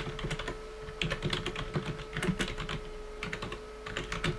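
Typing on a computer keyboard: runs of quick keystrokes in bursts, with short pauses between them.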